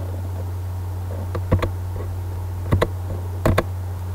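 Computer mouse clicks, three quick pairs about a second apart, over a steady low hum.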